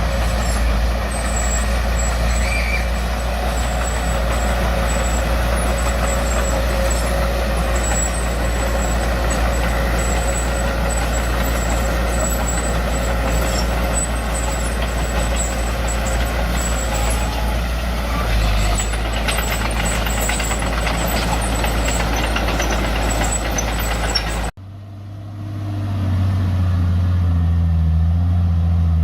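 Heavy diesel engine of earthmoving machinery running steadily. Near the end the sound cuts off abruptly, and a second, deeper engine drone comes up in level.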